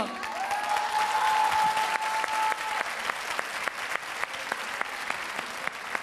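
Applause, many hands clapping, with a steady held note over it for the first two to three seconds.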